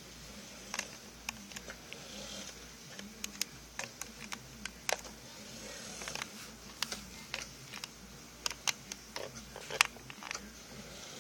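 Irregular small clicks and knocks, a few of them sharper, over a faint steady hum.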